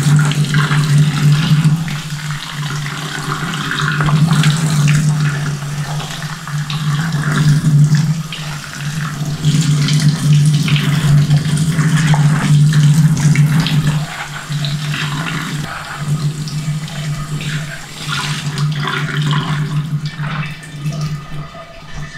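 Kitchen tap running into a stainless-steel sink while silicone scrubbing gloves rub over the faucet and basin, with short scrubbing scrapes over the splashing water. A steady low hum runs underneath, dropping out briefly twice about two-thirds of the way through.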